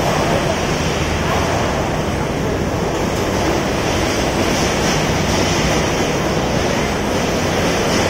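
Steady roar of construction-site machinery with a low hum underneath, unchanging throughout.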